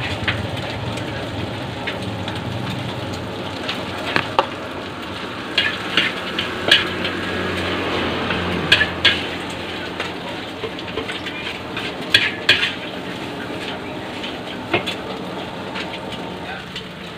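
Nasi goreng (fried rice) stir-frying in a large wok: a steady sizzle, with the metal spatula scraping and clanking against the wok in short clusters through the middle of the clip.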